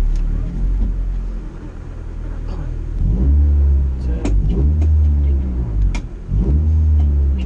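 Rally car engine heard from inside the cabin. It runs with a steady low rumble at first. About three seconds in it goes to hard revs that climb in pitch in repeated surges, each breaking off after a second or so, as in flat-out acceleration through the gears.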